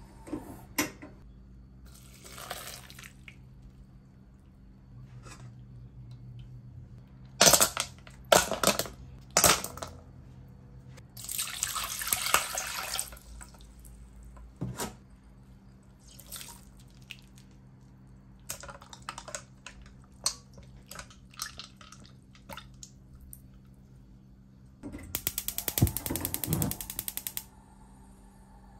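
Cooking sounds at a gas stove over a steady low hum. Loud metal knocks come first, then about two seconds of water splashing and pouring as boiled noodles go into a steel bowl of ice water, with small clinks. Near the end a gas burner's igniter clicks rapidly for about two seconds.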